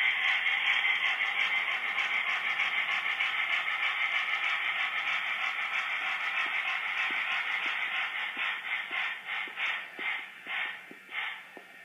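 Sound decoder of a Walthers Life-Like Norfolk & Western Y3 model steam locomotive playing steam exhaust chuffs through its small onboard speaker. The chuffing is steady and quick at first, then slows and fades over the last few seconds as the engine backs away.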